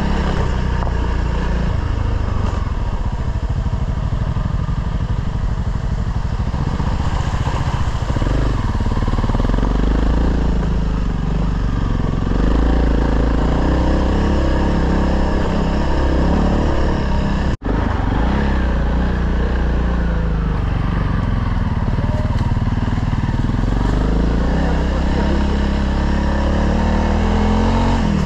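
Honda CRF dual-sport motorcycle engine running under way, its pitch rising and falling with the throttle over a steady rushing noise. The sound cuts out for an instant about two-thirds of the way through.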